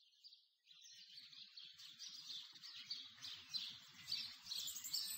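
Many small birds chirping in a dense chorus, fading in about a second in and growing gradually louder.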